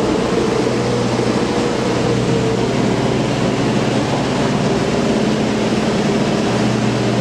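Boat engine running at a steady cruising speed inside a brick canal tunnel: a constant low hum under a broad, even rushing noise.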